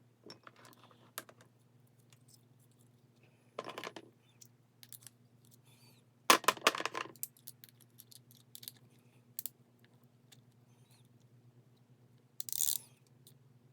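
Small metallic clicks and clinks of hand tools and carburetor parts as a main jet is fitted into a dirt bike carburetor, with a louder clatter about six seconds in and a short hiss near the end.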